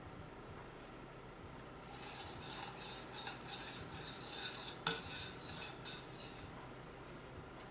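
Metal spoon stirring and scraping around a stainless steel skillet of sugar mixture on the heat. A quick run of scrapes and clinks starts about two seconds in and stops after about six and a half seconds, with one sharper clink of spoon on pan near the five-second mark.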